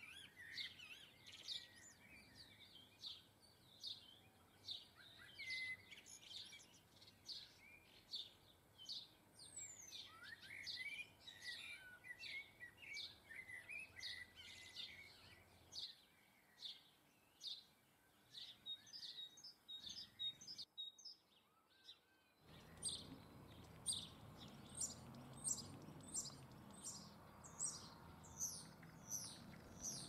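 Small garden songbirds chirping and twittering in many short high calls. Near the end the calls come regularly, about two a second, over a low steady rumble that starts about three-quarters of the way through.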